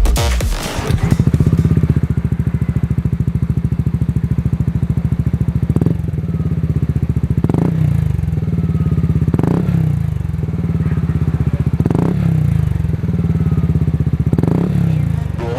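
Motorcycle engine with an aftermarket racing exhaust idling with a steady, fast pulse, with five short throttle blips spaced a couple of seconds apart.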